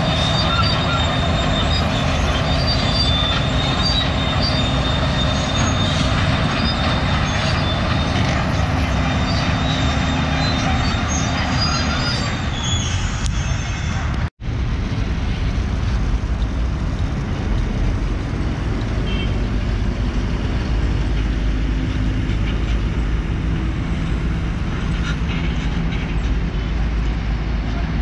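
Steady vehicle noise: an engine running with road and wind rumble, with some faint high whine in the first half. It drops out abruptly for an instant about halfway through, at an edit.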